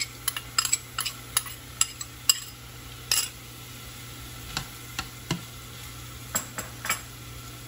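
Ground pork being pushed with chopsticks out of a ceramic bowl into a saucepan of frying onions: quick sharp clicks of chopsticks against bowl and pan for the first three seconds, then a few scattered taps as the meat is stirred, over a steady frying sizzle.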